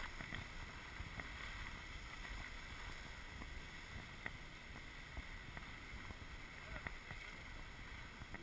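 Steady hiss of skis gliding over snow during a descent on skis, with a few faint ticks.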